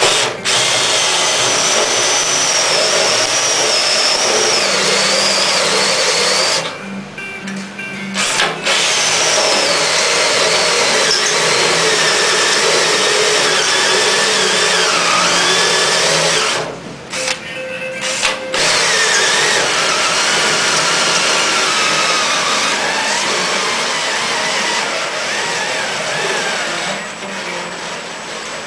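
Cordless drill running in long stretches, driving screws into the sheet-metal pillar panel, with a wavering motor whine. It stops briefly about seven seconds in and again about seventeen seconds in.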